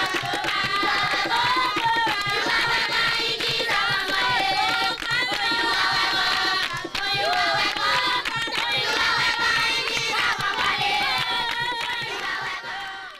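Music of several voices singing together over quick percussion, fading out near the end.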